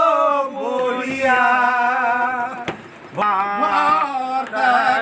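A man singing a Bengali song, drawing out long wavering notes, with a short break about three seconds in.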